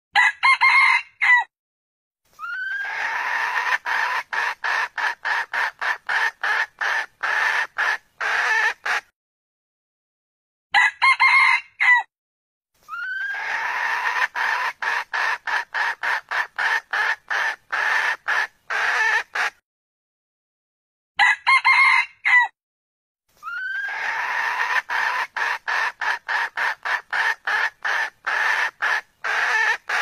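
Red junglefowl calling: a short rooster crow of about a second, then a long run of rapid, evenly spaced clucks, about three a second, lasting six or seven seconds. The crow-and-cluck sequence repeats three times.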